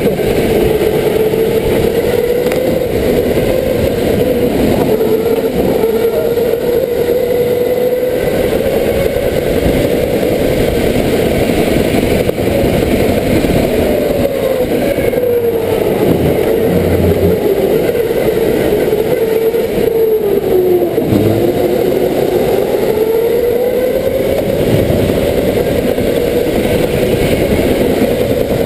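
Go-kart motor running at speed, heard onboard. Its pitch sags and climbs as the kart works through the track, falling sharply as it slows about halfway through and again some six seconds later, then rising as it accelerates away.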